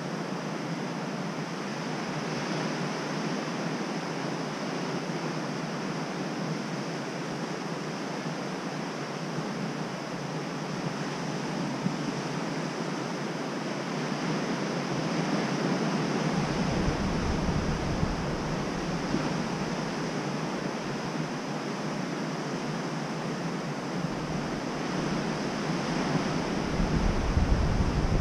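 Steady wash of surf, waves breaking over a rocky shelf and onto the sand. A deep low rumble swells in about two-thirds of the way through and again near the end.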